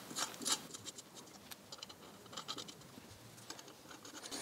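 Faint, irregular scratching and light metallic clicks of a steel stud being screwed by hand into freshly tapped threads in an engine manifold flange.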